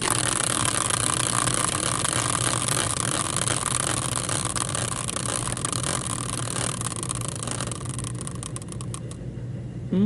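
Prize wheel spinning: a dense rush of rapid ticking that slowly fades and breaks into separate, slowing clicks near the end as the wheel comes to rest.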